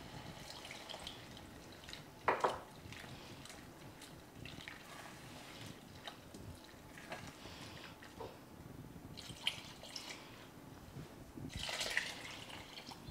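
Wooden spoon stirring and scraping through onions and flour in a stainless steel saucepan as milk is added a little at a time to build a cream sauce, with scattered small clicks and one brief louder clack about two seconds in. Milk is poured into the pan near the end.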